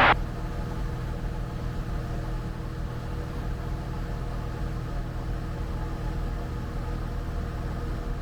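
Cessna Skyhawk 172's piston engine and propeller droning steadily in cruise, heard from inside the cabin.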